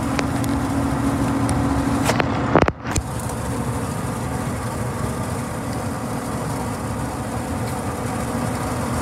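Steady road and engine noise heard from inside the cabin of a vehicle driving on the highway. A steady hum sounds through the first two seconds, and a brief knock with a short dropout comes about two and a half seconds in.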